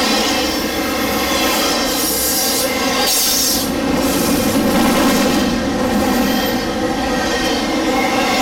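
Double-stack intermodal container train rolling past at close range: a steady, loud noise of freight car wheels running on the rails.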